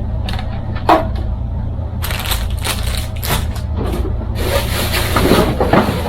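Cardboard and plastic packaging handled as a boxed home theater unit is unpacked: a few scattered clicks, then crackling and rustling that grows denser and continuous over the last couple of seconds.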